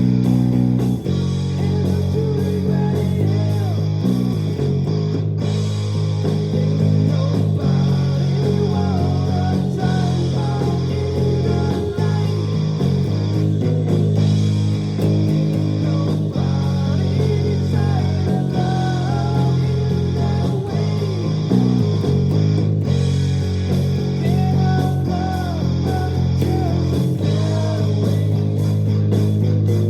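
Luxars S-KB20 travel-size electric bass being played: a steady run of sustained bass notes changing every second or so, with a higher melody line over them.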